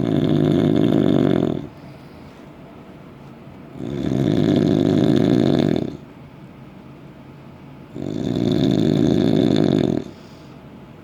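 Loud snoring: three long snores in a steady rhythm, each lasting about two seconds and coming roughly every four seconds, with quieter breaths in between.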